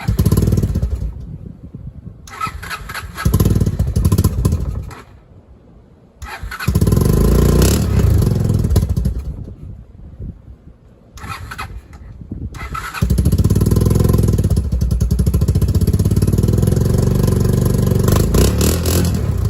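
1990 Honda TRX200 Fourtrax ATV's single-cylinder engine, cold just after starting, revved in three short bursts that fall back toward idle between them, then held at steady higher revs from about two-thirds of the way through.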